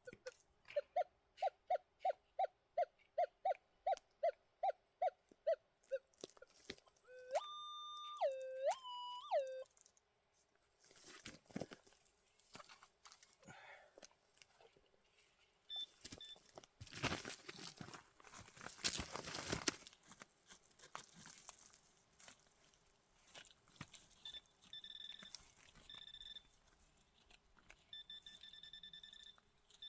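Metal detector sounding off over a target: a quick run of short beeps, about three a second, then two longer tones that jump up in pitch. Midway there is a burst of scraping noise, and near the end short, higher beeps.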